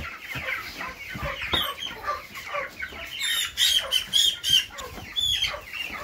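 A flock of five-week-old white meat chickens cheeping and clucking in a brooder. Many short high cheeps overlap, with a run of louder ones about three to four seconds in.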